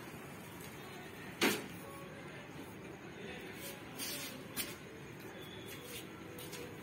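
Faint mechanical knocks from a motorcycle's kick-starter being kicked, a couple of times about four seconds in, without the engine catching. A sharper single click comes about a second and a half in.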